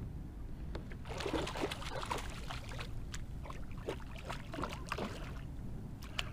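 A hooked sheepshead thrashing and splashing at the water's surface beside a kayak: a run of irregular splashes from about a second in until past five seconds, over a steady low rumble.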